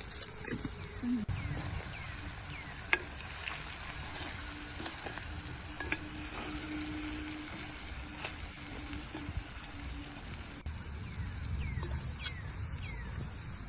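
Food frying in a pan with a steady sizzle while it is stirred, a utensil clicking against the pan now and then.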